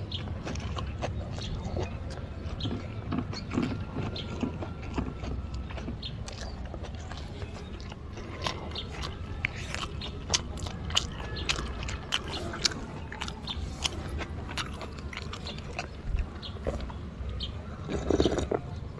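A man chewing a mouthful of fried rice, with many short wet mouth clicks and smacks over a low steady rumble. Near the end comes a louder sip from a glass.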